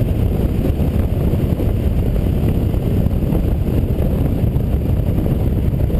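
Steady, loud rush of wind buffeting and road rumble from a KTM 990 motorcycle cruising at highway speed, its V-twin engine running underneath, heard through an on-bike camera microphone.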